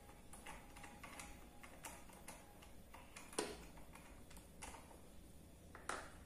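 A screwdriver turning out a screw from the plastic battery cover of a Honda Beat scooter: faint, irregular small clicks and ticks, with two sharper clicks about three and a half and six seconds in.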